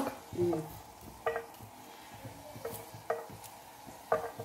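A few short, separate taps and clinks as garlic is cut by hand into a frying pan of oil, the knife and pieces touching the pan.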